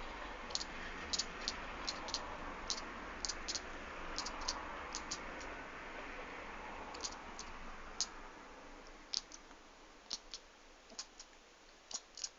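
A kitten making sharp, irregular squirrel-like clicking noises, a few a second, over a soft hiss that fades after about eight seconds. The owner takes the noises for frustration.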